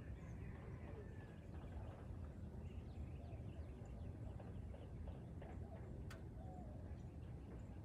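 Outdoor garden ambience: faint birds chirping in scattered short calls over a steady low rumble, with a single sharp click about six seconds in.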